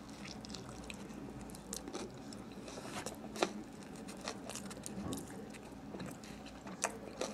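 A person chewing a mouthful of sub sandwich with the mouth closed, with soft wet clicks and smacks; two sharper smacks come about three and a half seconds in and near the end.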